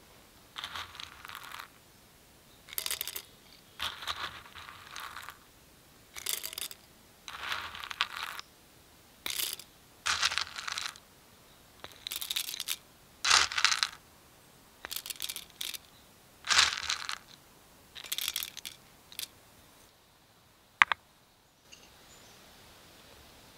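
Coffee beans spooned into a stainless steel hand coffee grinder, rattling against the metal in about a dozen short bursts, one every second or so. A single sharp click comes near the end.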